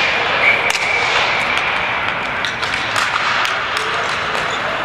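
Ball hockey play: scattered sharp clacks of sticks and ball on the playing floor over steady background noise, with a thin high tone held for the first couple of seconds.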